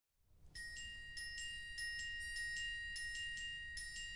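Concert band mallet percussion (orchestra bells) playing the opening figure alone: repeated struck, ringing notes, roughly three a second, starting about half a second in.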